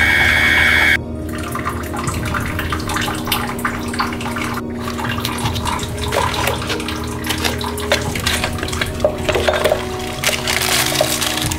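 Glasses and plastic containers clinking and knocking as they are moved about on a cupboard shelf, over a steady rushing, watery background hum. A loud noisy burst with a whistle-like tone lasts about a second at the very start.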